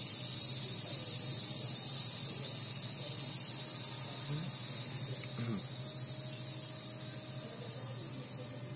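Micro electric RC model plane's small motor and propeller in flight: a steady high, hissy whine that fades slightly near the end.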